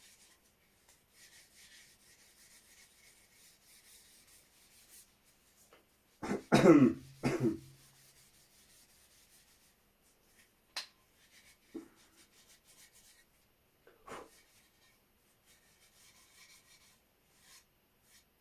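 Steel wool rubbing over the wooden stock of an old percussion rifle in faint stretches with pauses. About six seconds in a man coughs loudly, twice, and a few faint knocks follow later.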